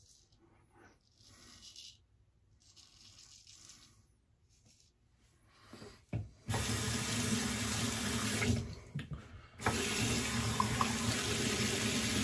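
A few faint strokes of a straight razor on stubble. Then, about six and a half seconds in, a tap starts running steadily into a sink as the face is rinsed, stopping for about a second partway through and then running on.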